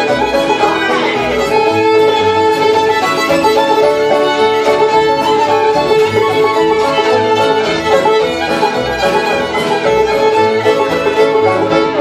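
Live Cajun tune on fiddle, backed by strummed acoustic guitar and plucked upright bass, played at a steady, even beat.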